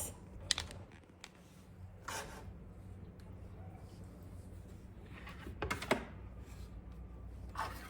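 Quiet kitchen handling noises: a few soft knocks and rubs, the loudest just before six seconds in, over a steady low hum.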